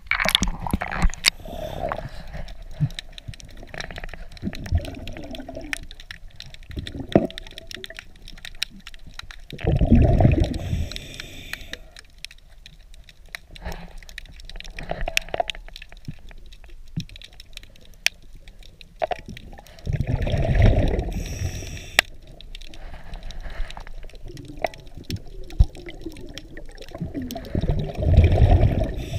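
Underwater gurgling: three loud bursts of bubbles about ten seconds apart, typical of a scuba diver's exhalations through a regulator, with scattered sharp clicks and knocks in between.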